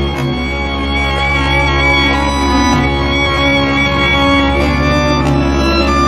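Background instrumental music: long held notes over a steady low drone.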